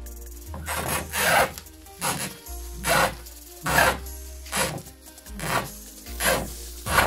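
Cling film crinkling and rubbing against a wooden cutting board as hands roll a wrapped roll of pork hock meat back and forth, in rhythmic swishes about one a second.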